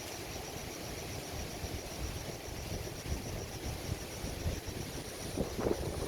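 Sea waves washing onto a beach under an unsteady low rumble of wind on the microphone.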